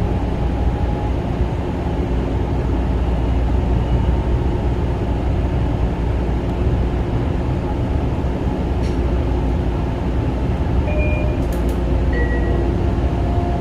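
Kawasaki M9 electric railcar running along the track, a steady loud rumble of wheels and motors heard from inside the car. A few short squeals come near the end.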